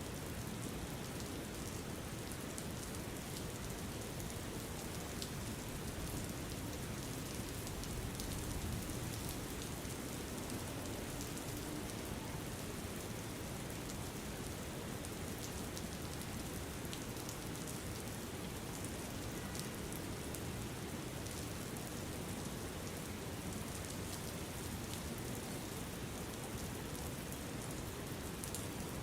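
Steady rain ambience: an even hiss of falling rain with scattered drops ticking.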